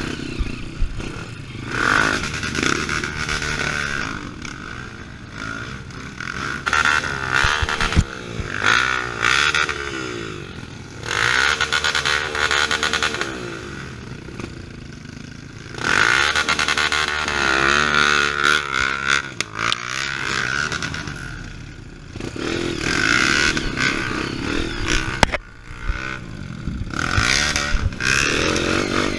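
Trail motorcycle's engine revving up and down again and again while riding a rough off-road track, in repeated surges of throttle, with clattering from the bike over the terrain.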